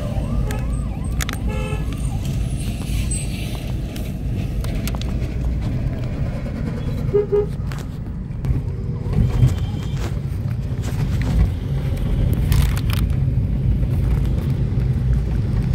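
Steady low rumble of engine and road noise inside a moving car's cabin, with a brief horn toot about seven seconds in and a few scattered knocks.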